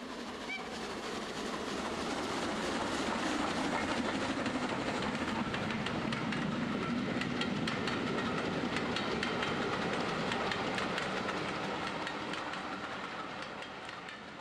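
G-scale garden railway model train running along the track, its wheels clicking over the rail joints. It grows louder as it approaches, passes at its loudest midway, then fades away.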